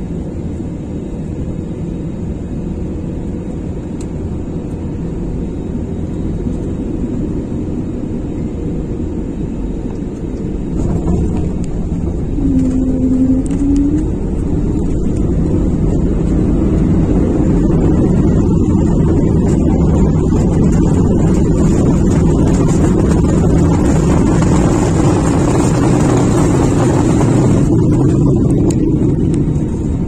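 Cabin sound of an Airbus A320-family airliner landing: steady engine and airflow roar on short final, a jolt of noise as it touches down about eleven seconds in, then a louder roar during the runway rollout that eases shortly before the end.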